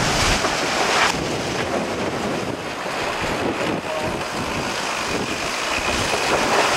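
Wind buffeting the microphone and water rushing past the hulls of the Groupama 3 maxi trimaran sailing at speed. There is a louder surge of spray in the first second, then a steady rush.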